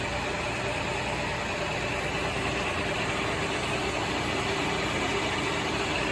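Koan Cho KC1640 engine lathe running steadily in high range at 840 rpm with the power cross-slide feed engaged: an even mechanical hum of spindle and gearing, with no knocks.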